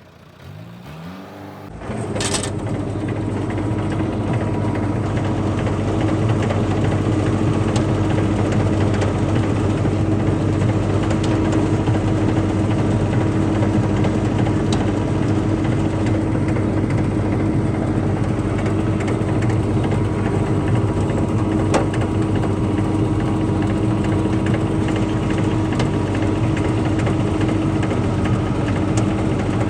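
An engine comes up to speed about two seconds in, rising in pitch, then runs steadily with a low hum.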